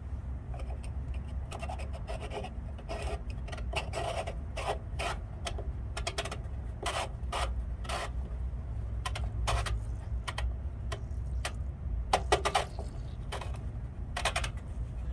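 Irregular scraping and rubbing strokes of hand tools and parts being worked while the DEF filter is fitted under the truck, over a steady low hum. The strokes come unevenly throughout, with the loudest ones about twelve seconds in.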